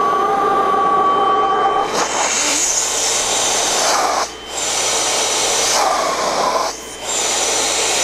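Ruwac FA2000 central vacuum's blower running with a steady rush of air. About two seconds in the air noise turns to a brighter hiss, and it dips briefly twice, once near the middle and once near the end.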